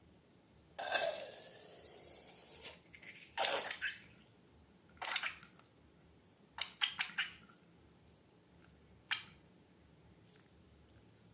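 Slime being handled. About a second in there is a longer rushing swish, then a handful of short wet squishes and clicks, spaced a second or two apart.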